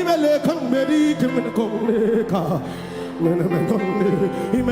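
Background music under a sermon: sustained keyboard chords, with a man's voice over them.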